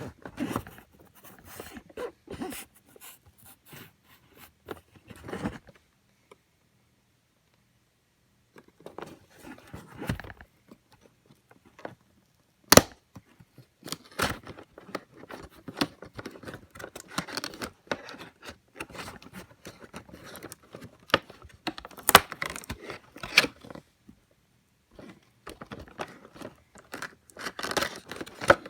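Toy packaging being opened by hand: irregular scraping, tearing and crinkling with sharp clicks, in several bursts with short pauses between.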